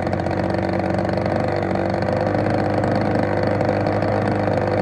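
DLE 35 single-cylinder two-stroke gasoline model-airplane engine running steadily just after catching on a bump from an electric starter. The engine starts hard but runs well once started.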